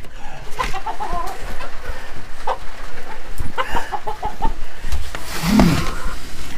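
Domestic hens clucking in short runs of quick clucks, mixed with scattered knocks and rustling from someone moving among them.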